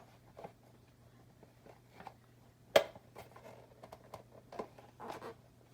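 Small plastic toy closet parts being handled: scattered light clicks and taps, with one sharp click nearly three seconds in.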